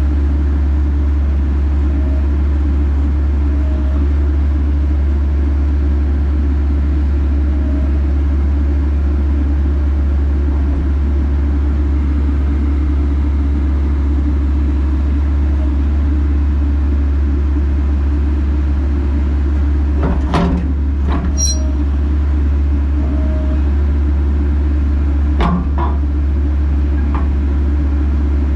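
Bobcat E85 excavator's diesel engine running steadily at a constant low drone, with a few short clunks about twenty and twenty-five seconds in.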